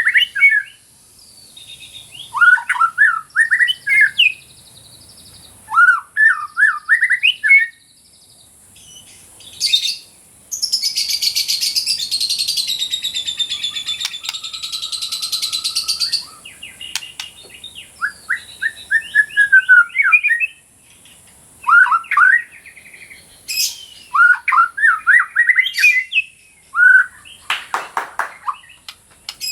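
White-rumped shama (murai batu) singing: repeated phrases of quick rising and falling whistled notes, each lasting a couple of seconds with short pauses between. In the middle comes a long harsh buzzing rattle of about six seconds, and a few sharp clicks are scattered through.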